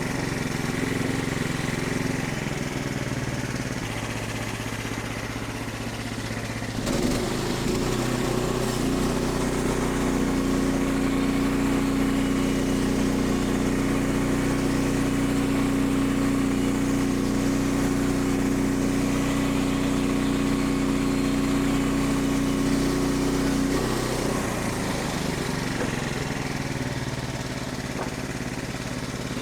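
Portable band sawmill's small gasoline engine running steadily. Its note changes and grows slightly louder about seven seconds in, holds until about 24 seconds, then returns to the earlier note.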